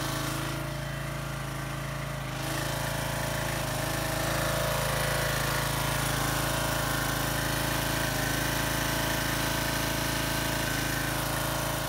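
Single-cylinder 7.75 hp Briggs & Stratton engine of a Craftsman 2700 PSI pressure washer running steadily, with water spraying from a leak at the pump's TIG-welded cast aluminium manifold: the weld repair has not held.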